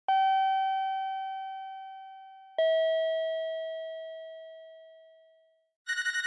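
A two-note descending chime, ding then dong, each note struck and left to ring out; the second note comes about two and a half seconds after the first. Near the end a telephone bell starts ringing with a fast trill.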